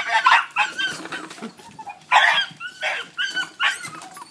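Pig dog pups barking and yapping in a quick string of short, sharp calls as they tackle a young wild boar piglet, the loudest about two seconds in.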